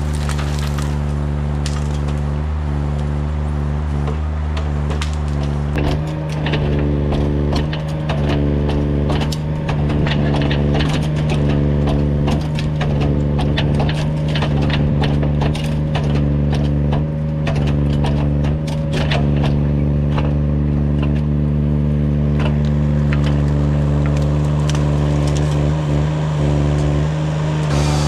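Jobo ST35 harvester head on a Kranman Bison 11 000 forwarder's crane feeding a thin tree stem and delimbing it, with many quick cracks and snaps of branches breaking off, thickest from about six seconds in to about twenty. Under it the machine's engine runs steadily.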